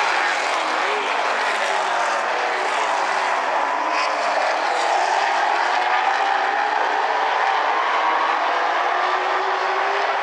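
Several super late model stock cars' V8 engines running around the track together, a steady, dense engine drone whose pitches drift up and down as the cars pass.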